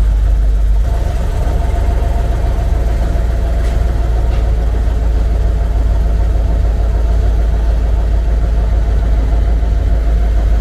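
Vehicle engine running steadily, with a heavy low rumble.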